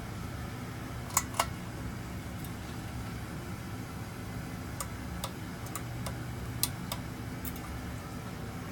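Hunter Low Profile II ceiling fan running with a steady low hum, with scattered sharp clicks over it, the two loudest close together a little over a second in.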